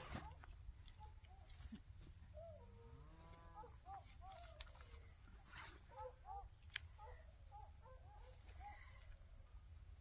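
Animal calls: one drawn-out low call that rises in pitch, about two and a half seconds in, among many short chirping calls, over a steady low wind rumble on the microphone.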